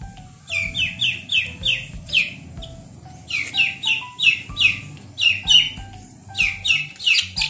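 A Shamo chick peeping loudly and insistently, short calls falling in pitch at about three a second in two runs with a short break between them. The loud repeated peeping is the kind a chick gives in distress, here while a puppy mouths it.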